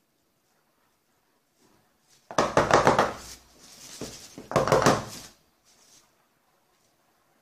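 A metal loaf pan full of ice cream knocked against a countertop in two short bouts of knocking about two seconds apart.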